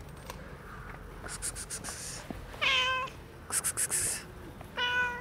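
A grey-and-white domestic cat meows twice, two short, even-pitched meows about two seconds apart. Quick runs of high, sharp clicks come before each meow.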